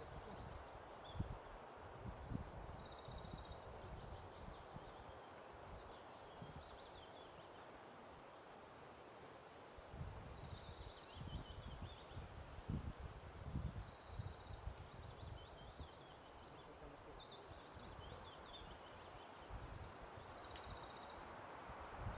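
Steady wind noise with irregular low gusts buffeting the microphone, while small birds call over and over in short, high-pitched trills.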